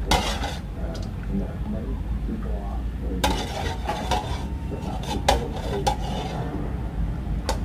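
Kitchen utensils clinking and knocking against dishes: about six sharp, separate clicks spread over several seconds, over a steady low background hum.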